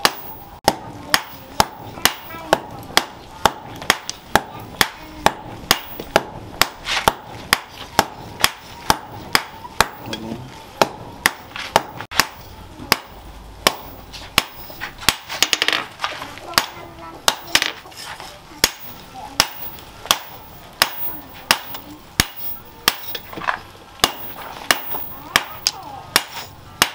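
Hand hammer striking a red-hot machete blade on a cylindrical steel post anvil: steady forging blows, about two a second, each a sharp metallic strike.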